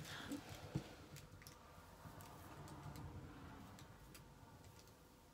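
Near silence: room tone with a few faint, scattered ticks and clicks, one a little louder under a second in.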